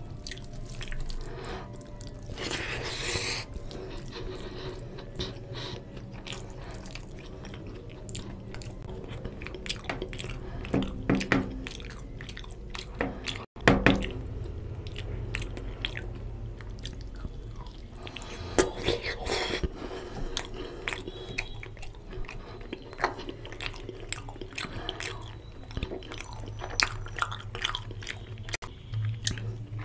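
Close-miked wet chewing and lip smacking of a person eating mutton curry and rice by hand, full of small mouth clicks. A couple of longer, louder hissy bursts come about three seconds in and again past the middle.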